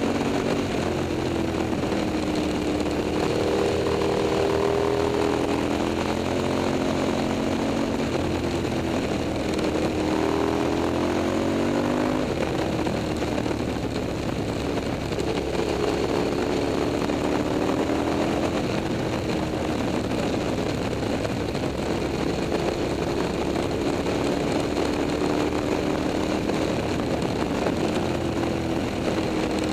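KTM 990 SMT's V-twin engine running through a LeoVince exhaust while the bike is ridden. Its pitch climbs for several seconds, drops abruptly about twelve seconds in, then holds at steadier engine speeds.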